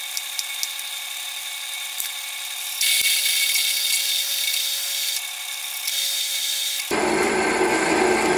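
Metal lathe running with its spindle turning, a twist drill in the tailstock chuck boring into the workpiece held in the chuck: a steady whine from the drive, louder and harsher for a couple of seconds from about three seconds in, with a few light ticks near the start. Near the end the sound turns fuller and lower.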